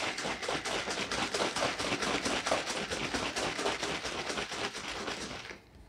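Liquid sloshing in a plastic spray bottle shaken hard and fast, several strokes a second, to mix 99% isopropyl alcohol (Iso-HEET) with castor oil into a case lube. The shaking stops suddenly near the end.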